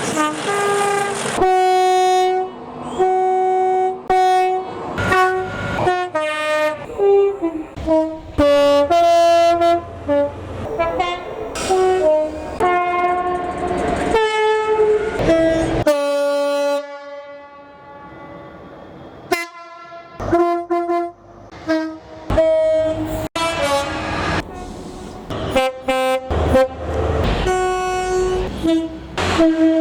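Train horns played as a tune: a quick run of short and long blasts at changing pitches. About halfway through one note is held longer, then there is a brief lull before the blasts resume.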